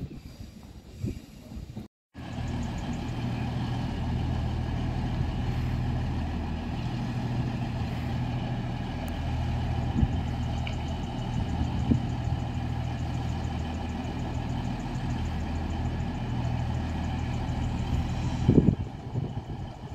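NMBS class 41 diesel multiple unit idling at a platform: a steady low engine drone. Near the end there is a loud clunk, after which the drone stops.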